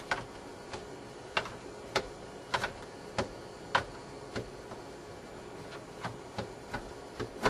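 Squeegee clicking and tapping against the rear window glass as window tint film is pushed back around a defroster tab: a string of sharp, irregular clicks, roughly two a second.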